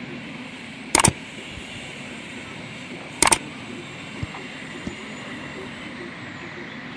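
Two sharp metal knocks of tools on car parts, each a quick double, about a second in and about three seconds in, with a few faint ticks later, over steady workshop background noise. They come from work to take apart a Toyota Corolla's drivetrain.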